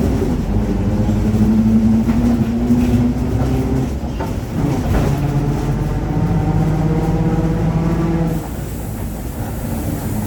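Mercedes-Benz OF-1721 BlueTec5 bus on the move, its diesel engine and drivetrain running with a growling differential. The steady tones change pitch about four seconds in, and the sound drops a little quieter just after eight seconds.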